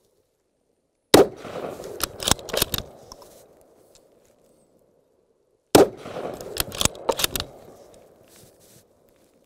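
Two shots from a Ruger Precision Rifle in 6.5 Creedmoor, about four and a half seconds apart, the first about a second in. Each report is followed by a quick string of sharp cracks and a fading rumble lasting about two seconds.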